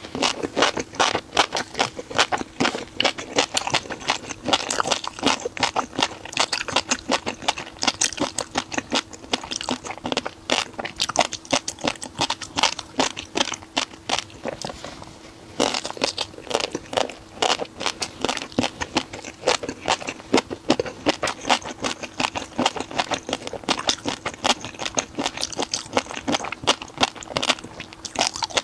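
Close-miked chewing of a crunchy shrimp dish: a fast, uneven run of loud crunches and crackles, easing off for a moment about halfway through before resuming.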